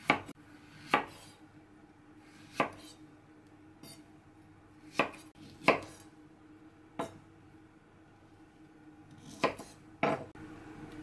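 Knife slicing Thai eggplants on a bamboo cutting board: about eight separate chops, each blade striking the board, spaced irregularly a second or so apart.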